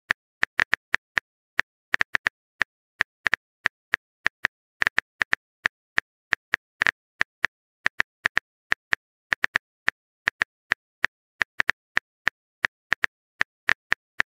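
Smartphone on-screen keyboard key clicks from letters being typed, an irregular run of short ticks, about three to four a second.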